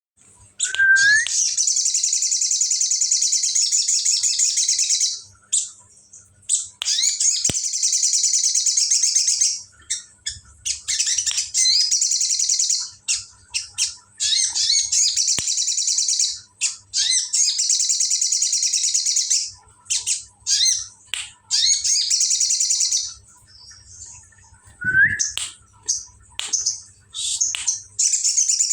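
Bar-winged prinia (ciblek) singing in long, fast, rattling trills of two to four seconds each, the 'ngebren' style valued by songbird keepers. Short pauses and scattered single chips fall between the trills, and a short rising whistle comes near the start and again about 25 seconds in.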